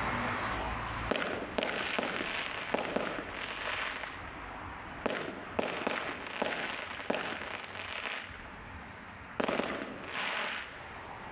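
Aerial fireworks exploding in a rapid, irregular series of sharp bangs over a constant crackle and rumble, with two more loud bursts near the end. The reports sound much like gunshots.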